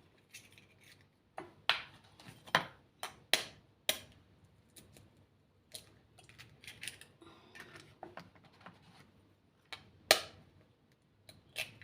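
Eggs being cracked against a bowl for egg muffins: irregular sharp taps and clicks of shell on the bowl, with light clinks of kitchenware being handled in between.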